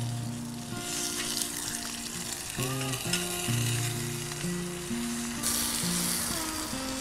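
Food sizzling in cookware over a camp stove, the hiss swelling twice, under background instrumental music of steady notes changing in steps.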